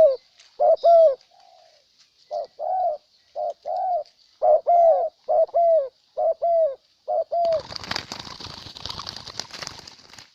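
Spotted doves cooing: a string of short, paired coo notes, one after another. About two thirds of the way through, the cooing stops and a loud rustling, crackling noise takes over until the end, over a faint steady high-pitched buzz.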